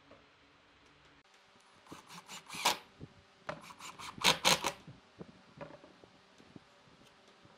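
Cordless impact driver driving screws through the steel mounting plate of an office-chair swivel base into the wooden seat frame, in two short rattling bursts, the second the louder, followed by a few small clicks of handling.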